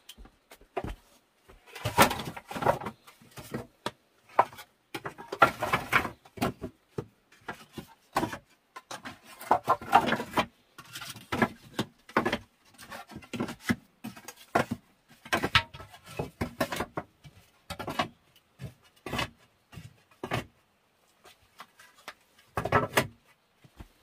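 Bamboo poles being handled and laid in place, knocking and clattering against each other in irregular clusters of knocks.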